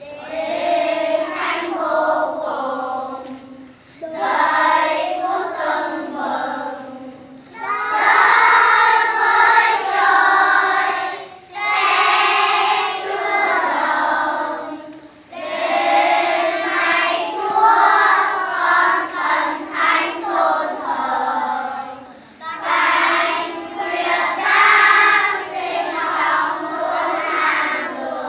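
Young children's choir singing a slow Christmas song, in phrases of three to four seconds with short breaths between them.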